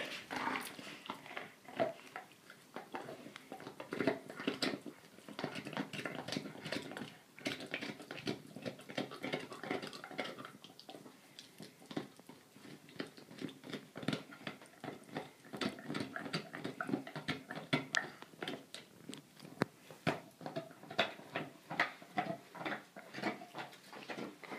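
Dog chewing on a bone: irregular, rapid crunching and gnawing clicks as her teeth work the bone.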